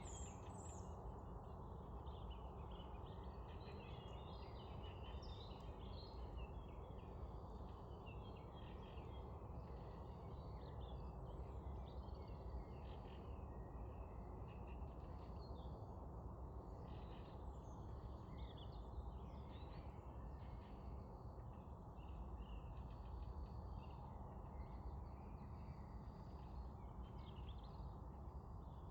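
Small birds chirping and singing, many short overlapping calls throughout, over a steady low background rumble.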